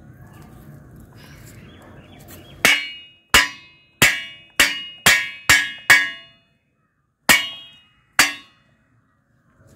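Dried coconut half-shell knocked repeatedly against a flat metal bar on the ground, to loosen the copra from the shell. Nine sharp knocks, each with a short metallic ring: seven in quick succession at about two a second, then two more spaced out near the end.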